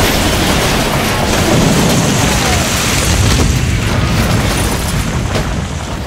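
Big crash sound effect: a loud, long crash with a heavy rumble and scattered knocks, dying away near the end.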